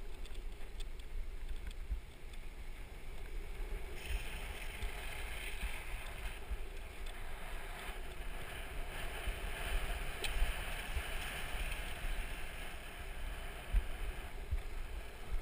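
Street luge or longboard wheels rolling fast over asphalt with wind rushing past the microphone: a steady hiss over a low rumble with small bumps from the road surface. The hiss grows brighter about four seconds in.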